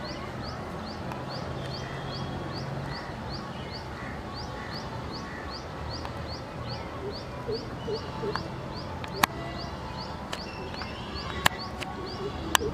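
A bird repeating a short rising chirp over and over, about two or three a second, over a low steady hum, with a few sharp clicks near the end.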